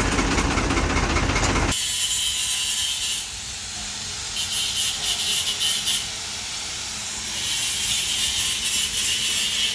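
A diesel tractor engine idling for about the first two seconds, cutting off abruptly. Then three spells of high hissing scraping, as greasy harvester parts are scrubbed in a pan of oil.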